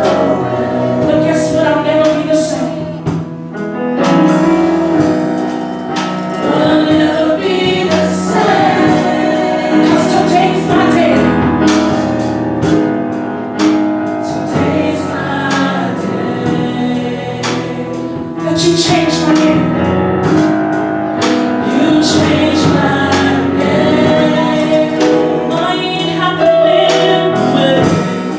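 Gospel choir singing, with instruments and percussion keeping a steady beat.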